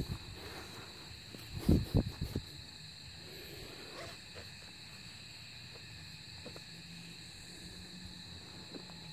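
A steady chorus of night insects, several thin high tones holding level throughout. About two seconds in, loud short low rumbles of handling noise on the phone's microphone.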